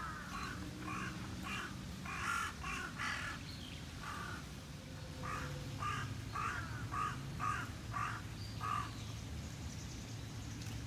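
A bird calling over and over in short harsh calls: a first run of calls in the first three seconds, then about seven evenly spaced calls from about five to nine seconds in, over a low steady hum.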